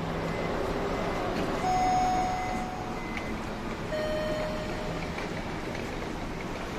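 Blizzard wind rushing steadily. Two steady tones about two seconds apart sound over it, each lasting about a second, the second lower than the first.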